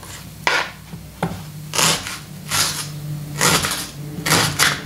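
Serrated knife cutting through a crisp, fresh onion on a plastic cutting board: about six short crunching cuts, a little under a second apart.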